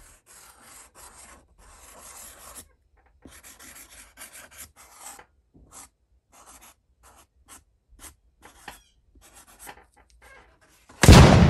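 Black felt-tip marker writing on a cardboard shoe box: a run of short, scratchy strokes with brief gaps between them. Near the end a sudden loud bang breaks in and dies away.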